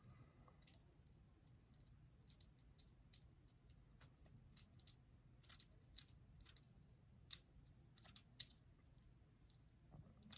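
Faint, scattered clicks and light taps as a plastic bobblehead is handled, with a few sharper clicks in the second half over a low room hum.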